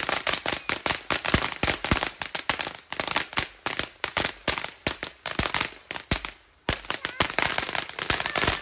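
Consumer fireworks going off in a fast, continuous run of sharp cracks, about eight a second, with a brief lull about six seconds in before the cracking resumes.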